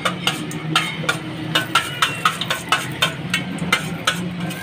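Curry leaves, cumin and dried red chillies spluttering in hot oil for a tadka, with irregular crackles and pops, over a steady low hum.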